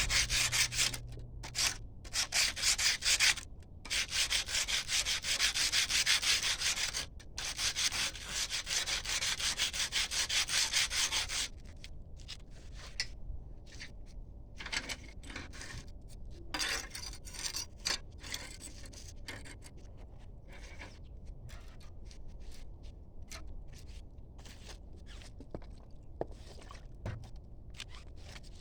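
Rapid back-and-forth abrasive rubbing by hand on a spear being repaired. The strokes are steady and loud for about eleven seconds with a few short breaks, then turn softer and come in broken spells with pauses.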